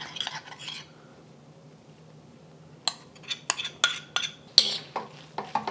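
A metal utensil clinking and scraping against a wok as noodles are tossed in sauce: a short pause, then from about three seconds in a string of sharp, irregular clinks.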